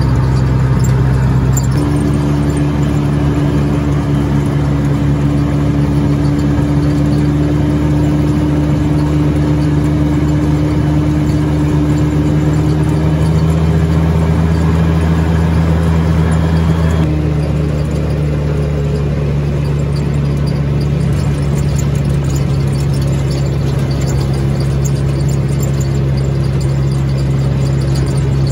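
ATV engine running steadily under way, a constant drone that shifts suddenly in pitch twice.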